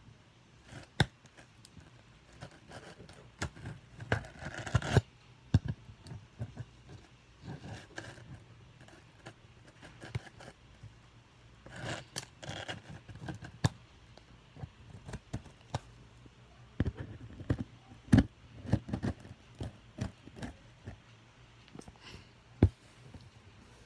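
Packaging being opened and handled by hand: irregular scraping, tearing and rustling with many sharp clicks and knocks, some cutting among them.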